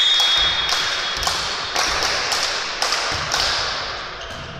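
Volleyball referee's whistle blowing briefly at the start to signal the serve, over noisy crowd cheering in a sports hall. Sharp rhythmic claps come about twice a second from spectators, then die away near the end.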